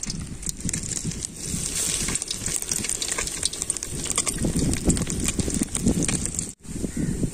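Battered fish pieces (fish bajji in gram-flour batter) deep-frying in hot oil in an aluminium kadai: a steady sizzle with fine, continual crackling. The sound drops out briefly near the end.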